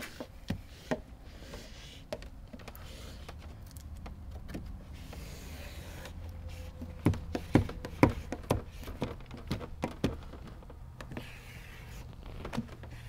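Plastic squeegee and hard-card contour tool working window film onto the wet glass of a 1996 Ford Mustang's frameless door window and prying at its rubber gasket: scattered clicks, taps and scrapes, sharpest in a cluster about seven to ten seconds in, over a steady low hum.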